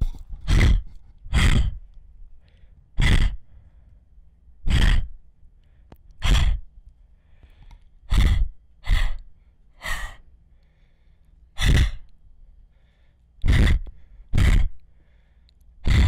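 A girl's heavy breathing: about a dozen loud, noisy breaths, each short and separate, at uneven gaps of one to two seconds, like the laboured breathing of someone who feels unwell.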